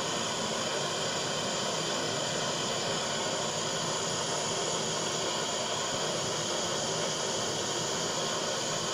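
Butane blowtorch flame burning with a steady rushing hiss while it heats a silver-solder bar in its mould. The flame cuts off abruptly at the very end.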